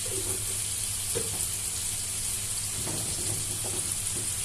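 Potato pieces sizzling as they fry in hot oil in a pan: a steady frying hiss, with a few faint clicks.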